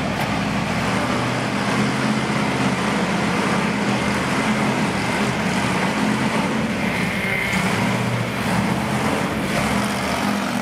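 A motor vehicle engine running steadily at a constant pitch over a continuous background din.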